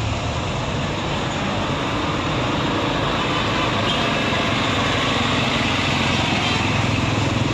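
Road traffic: a vehicle engine running steadily with roadside traffic noise, getting slightly louder near the end.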